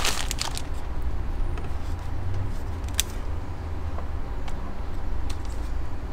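Light clicks and taps from handling a Sony ZV-1 compact camera as its flip-out screen is swung open on its hinge. There is one sharp click about three seconds in and a few fainter ticks after it, over a steady low rumble.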